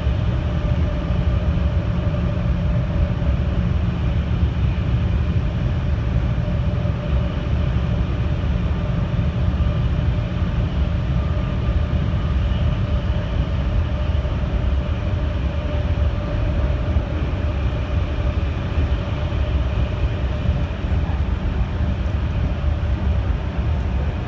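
Interior running noise of a JR 211 series electric commuter train at steady speed: a continuous low rumble of wheels on rail with a faint steady whine over it, heard inside the passenger car while the train runs through a tunnel.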